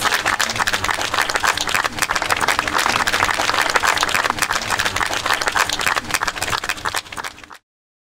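A small crowd applauding, dense clapping that fades and then cuts off into silence near the end.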